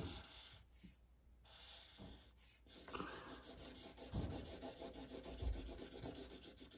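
Felt-tip marker scratching on a sheet of paper on a wooden tabletop as it colours in a small patch with quick back-and-forth strokes. The strokes are faint at first and get busier from about three seconds in.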